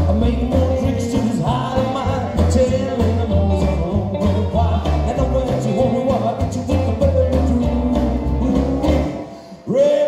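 Rockabilly band playing live: a lead singer over upright double bass, guitars and drums. Near the end the band drops out for a moment, then the singer comes back in on a long held note.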